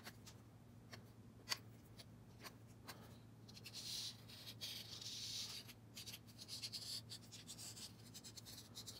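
Felt-tip marker scratching over a metal turbo flange as a port outline is traced, faint and heard mostly in the middle stretch, with a sharp click about one and a half seconds in.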